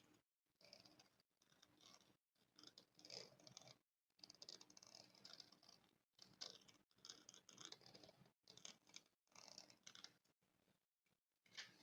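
Faint scratching of a spoon across a microphone: a run of short rasping strokes, about one a second, separated by brief silent gaps.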